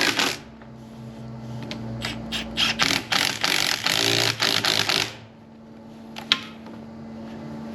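Hand tool tightening nuts onto the power and ground terminal studs: about three seconds of rapid scraping, ratcheting clicks, then a single sharp click. A steady low hum runs underneath.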